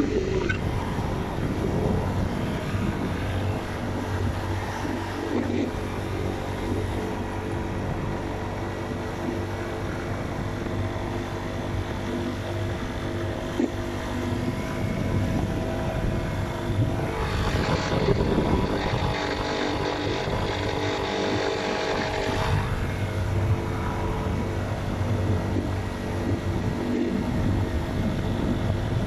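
Dirt bike engine running steadily under way as the bike pulls uphill, louder and harsher for a few seconds past the middle.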